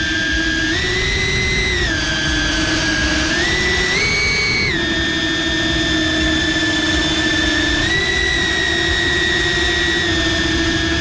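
Cinewhoop FPV drone's motors and ducted propellers whining, the pitch stepping up and down every second or two as the throttle changes.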